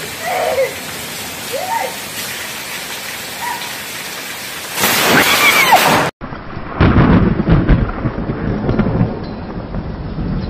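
Heavy rain pouring, with a loud burst of noise about five seconds in. After a sudden cut, deep rolling thunder rumbles over the rain.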